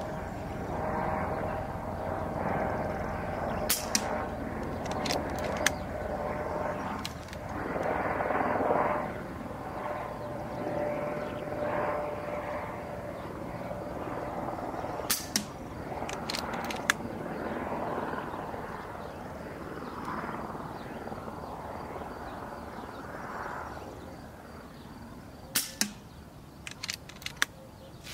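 Shots from an AirMaks Katran SC .22 PCP air pistol fitted with a large silencer, heard as sharp, fairly quiet cracks in three groups of two to four clicks each, about ten seconds apart, over a steady outdoor background.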